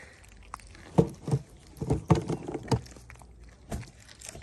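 Cats eating wet cat food out of plastic trays close by: irregular wet chewing and smacking with clicks and knocks against the plastic, a loud cluster between about one and three seconds in and one more near the end.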